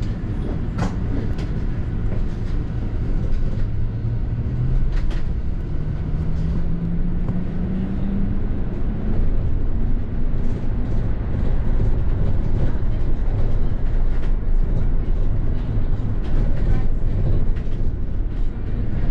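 Double-decker bus running, heard from inside the cabin: a steady low rumble with a few knocks and rattles. About four seconds in, a drivetrain tone rises in pitch as the bus gathers speed.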